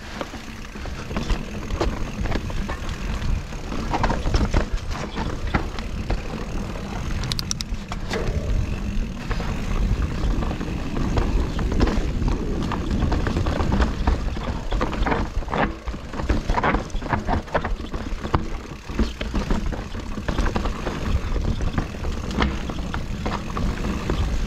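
Mountain bike being ridden along a rough dirt trail: a steady low rumble of rolling and air noise, with frequent rattles and knocks from the bike over bumps. A brief high squeal comes about seven seconds in.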